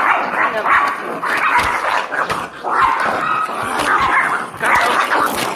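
Chihuahuas fighting over their toys: barking and yelping without a break.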